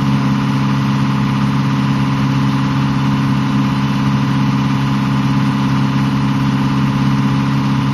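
A sailboat's auxiliary engine running steadily at constant speed, a loud, even drone.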